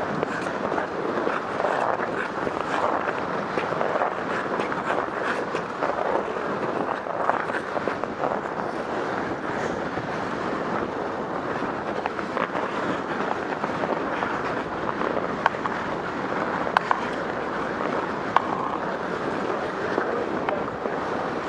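Hockey skates gliding and scraping on rink ice, with a steady rush of air over the microphone as the wearer skates. A few sharp clacks come in the second half.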